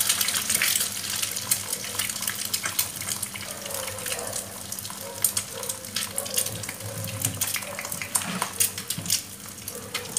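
Eggs frying in hot oil in a nonstick pan, just added: a steady sizzle with irregular crackling pops.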